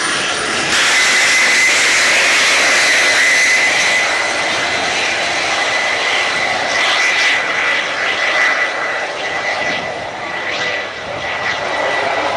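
Homemade turbojet engines of jet drag karts going to full power and launching. A loud jet roar with a steady high whine jumps up about a second in, then slowly eases off as the karts pull away down the strip.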